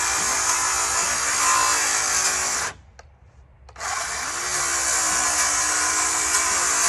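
Handheld power tool running steadily while taking apart a wooden pallet, cutting out for about a second partway through, then starting up again.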